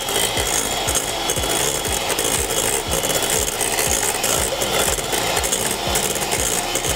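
Electric hand mixer running, its beaters scraping and knocking irregularly against a stainless steel bowl as they churn thick cooked choux pastry dough to let the steam out and cool it.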